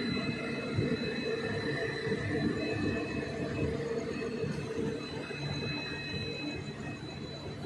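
Passenger train coaches running into a station, heard from the open coach doorway: a steady rumble of wheels on rail with a thin high whine, easing slightly as the train slows.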